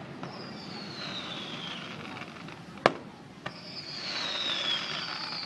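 Fireworks display: one sharp bang about three seconds in, with two high whistles that fall slowly in pitch, one before the bang and one after it.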